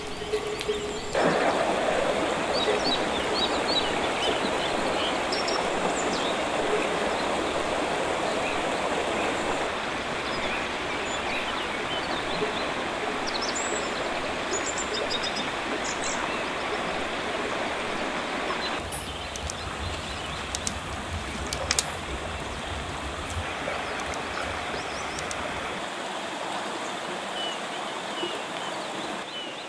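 Shallow, rocky river flowing over stones: a steady rushing babble of water. Its level and tone change abruptly a few times.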